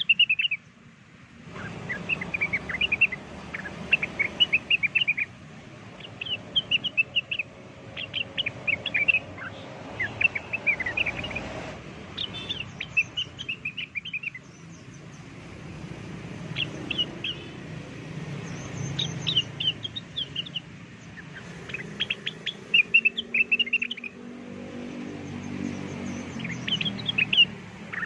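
Blue-winged leafbird (cucak wilis) singing: short bursts of rapid, sharp chirping notes, repeated every second or two.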